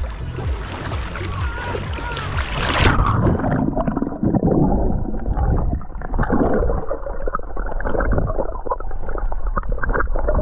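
Water noise that about three seconds in turns muffled and dull, as when the microphone goes underwater. After that come gurgling, bubbling and many small clicks.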